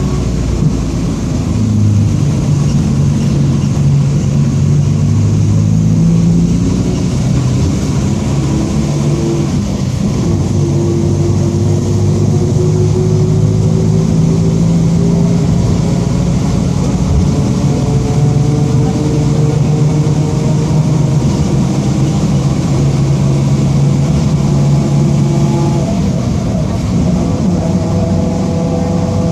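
Mercedes-Benz OF-1722M bus under way, its diesel engine running with the differential's gear whine, which slowly rises in pitch several times as the bus gathers speed.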